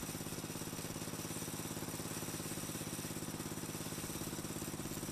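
Riding lawn tractor engine idling steadily with an even putter.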